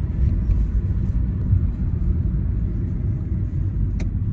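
Steady low rumble of a moving car, with one sharp click about four seconds in.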